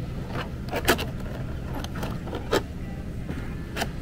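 Plastic clamshell cookie containers clicking and crackling as they are picked up and moved, four short sharp sounds over a steady low hum.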